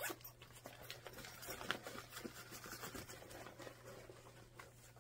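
A hand rummaging for a tile inside a cloth bag: soft rustling of fabric with light, irregular clicks of small tiles knocking together.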